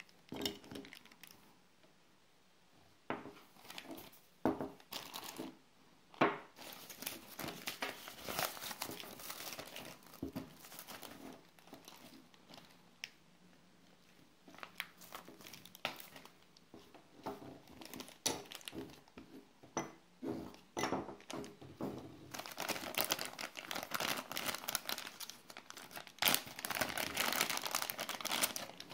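Clear plastic packaging bags and a nylon pouch crinkling and rustling as small plastic camera mounts are handled, with irregular sharp taps. The crinkling is thickest for a few seconds about eight seconds in, and again over the last six seconds or so.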